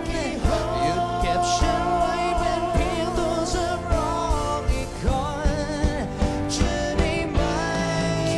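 Pop ballad with a band: a singer holding long, wavering notes without clear words, over a steady drum beat.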